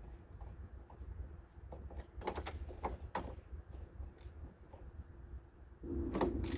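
Hand tools knocking and clicking on metal a few times. Near the end a louder rasping, rhythmic working noise starts, about three strokes a second, as the engine-mount bolts are worked loose.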